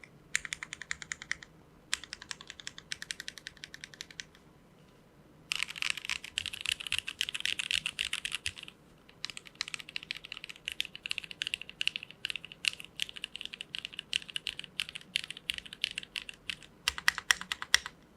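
Typing on a Geonworks F1-8X V2 mechanical keyboard with an aluminium plate, lubed and filmed Cherry MX Clear-top 'Nixie' switches and GMK keycaps. Runs of rapid keystroke clacks are broken by brief pauses, with the fastest and loudest run about a third of the way in.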